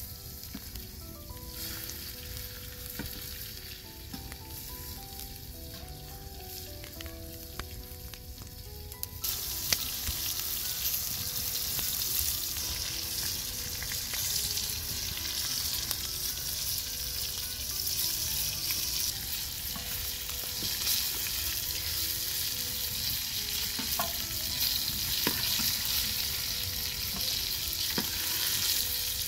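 Cabbage rolls frying in oil in a wide metal pan over a wood fire, sizzling steadily, with the odd click and scrape of a slotted spatula turning them. The sizzle gets clearly louder and brighter about nine seconds in.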